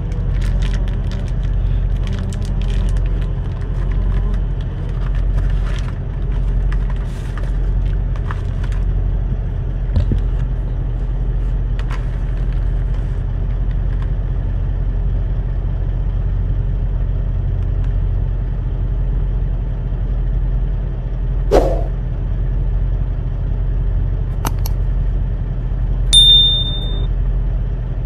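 Semi truck's diesel engine idling steadily, heard from inside the cab. Over it, a cardboard box and plastic packaging crinkle and rustle in the first several seconds, a single sharp knock comes about three-quarters of the way through, and a short high chime sounds near the end.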